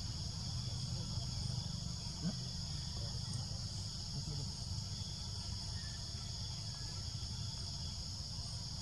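Steady, high-pitched chorus of forest insects, an even drone, with a continuous low rumble underneath.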